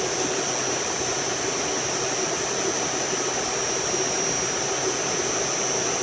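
Steady rush of air-conditioning blower noise, with a thin high-pitched whine held on top.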